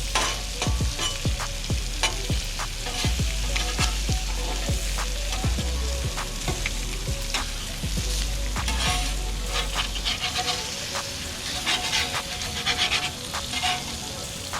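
Food frying and sizzling on a Blackstone 22-inch tabletop griddle, with frequent short clicks over a steady hiss.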